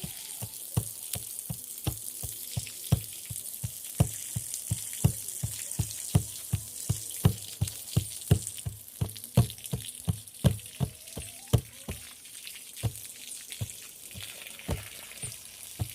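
A hand drum beaten in a steady pulse of about three beats a second, slowing to a few scattered beats near the end, over the crackle and hiss of a wood bonfire.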